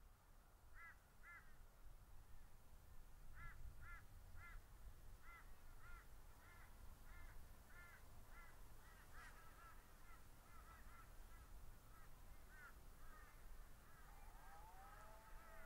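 Faint bird calls: a long run of short, harsh, repeated notes, several a second, with a lower sliding call joining near the end, over a faint low rumble.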